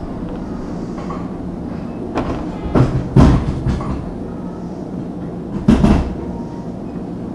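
Nagano Electric Railway 3500 series electric train standing at a station, with a steady low hum from its equipment. Loud knocks and thumps from the sliding passenger doors come about two to three seconds in and again near six seconds.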